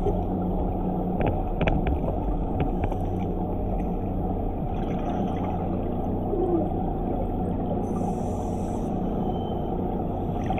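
DiveX Blacktip underwater diver propulsion scooter running steadily underwater: a low motor hum with propeller wash, heard from a camera mounted on the scooter. A few clicks come about one to three seconds in, and the diver's exhaled bubbles add a hiss near the end.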